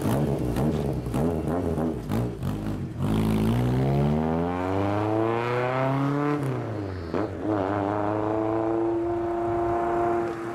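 Lowered Honda Civic hatchback pulling away and accelerating hard, its engine revs climbing steadily, dropping sharply at a gear change about six and a half seconds in, then climbing again and levelling off.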